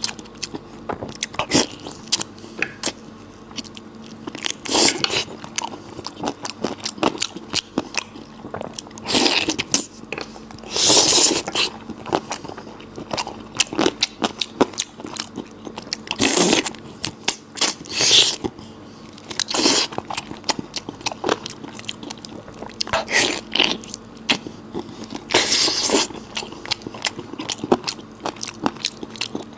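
A person eating close to the microphone: biting and chewing spicy goat belly, with rapid wet mouth clicks and crunches and several longer, louder noisy stretches.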